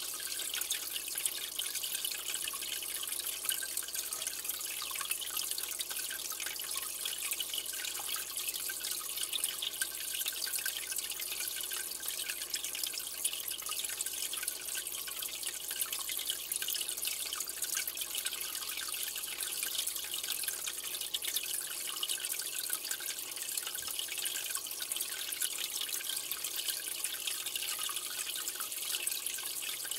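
Aquarium water trickling and dripping steadily, the running of the tank's water circulation, without a break.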